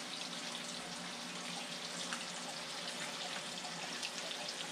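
Mangrove snapper fillets sizzling in oil in a frying pan: a steady hiss with scattered small pops, over a faint steady hum.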